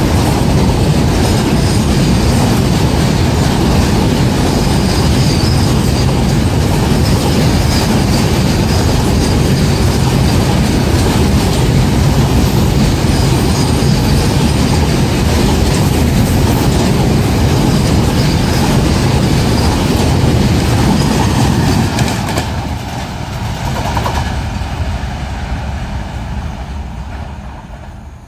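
A rake of BCACBM double-decker car-carrier wagons rolling past at close range, a loud steady rumble of steel wheels on rail. About three-quarters of the way through the last wagon passes and the sound drops suddenly, then fades away.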